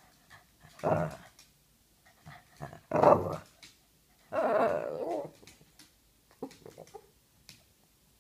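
A Boston terrier vocalizing at its ball in three short outbursts, about one, three and four and a half seconds in, the last the longest and wavering, with a few faint sounds after. They are the demanding noises of a dog that wants the ball thrown for fetch.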